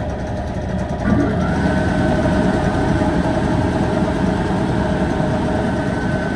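Magnum PRO SM5HS 5 hp two-stroke outboard motor running steadily while warming up after a cold start from frost. It gets slightly louder about a second in.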